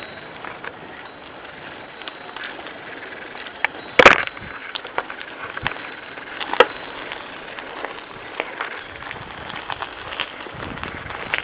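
Handling and movement noise on a handheld camera's microphone while moving along a sandy forest track: irregular small clicks and crackles over a steady hiss, with one sharp loud click about four seconds in and another a little over six seconds in.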